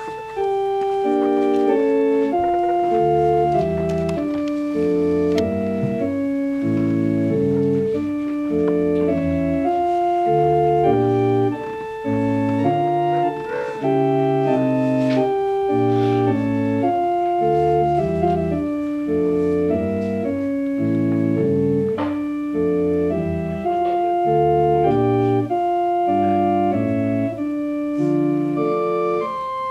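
Organ playing the offertory: a slow piece of held chords over a stepping bass line.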